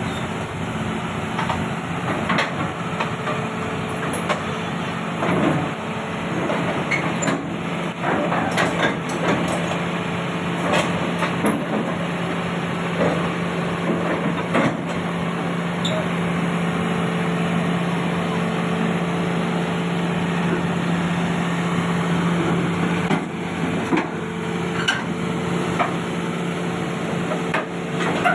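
Heavy machinery engine running steadily, with scattered metallic knocks and clanks throughout, more frequent in the first half.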